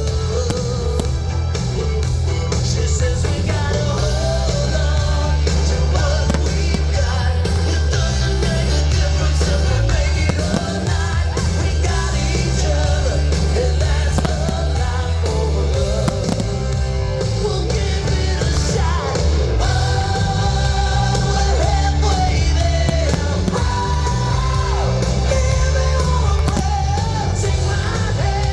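Rock music with singing, played loud with a heavy steady bass.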